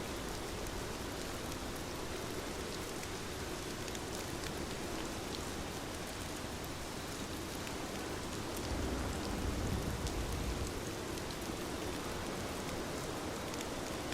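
Steady rain falling, an even hiss with scattered small ticks of drops. A low rumble swells for about two seconds around nine seconds in.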